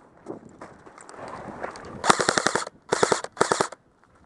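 Airsoft guns firing on full auto: three quick bursts of rapid clicking shots, about fifteen a second, starting about halfway in.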